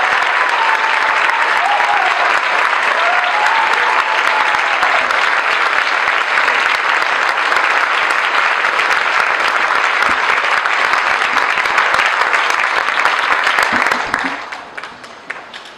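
Large audience applauding, a dense steady clapping that dies away about fourteen seconds in, leaving a few last scattered claps.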